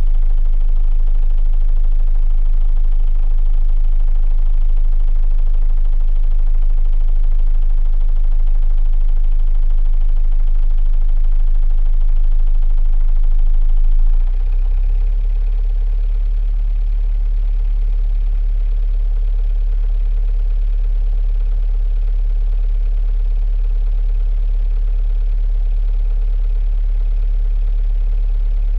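A 45 ft sailboat's inboard diesel engine running steadily, heard from inside the boat's rear cabin. About halfway through its sound changes and it settles at a slightly lower, steady level.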